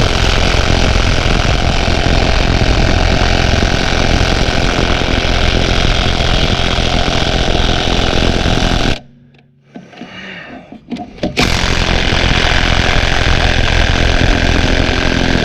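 Cordless impact wrench hammering steadily on a seized minivan lug nut. It stops for about two seconds after nine seconds, then starts hammering again. The nut does not break loose.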